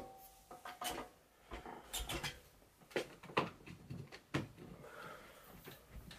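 A run of light, irregular knocks and clicks from objects being handled and set down, a dozen or so spread through the few seconds.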